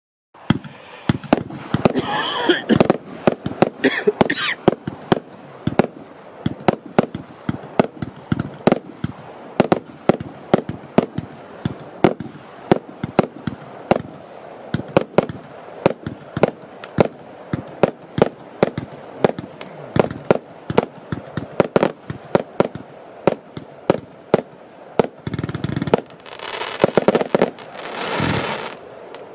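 Italian Power 1, a 200-shot 20 mm compound fireworks cake, firing from about half a second in: a fast, irregular string of sharp shots and bursting reports. It ends in a denser stretch of crackling near the end.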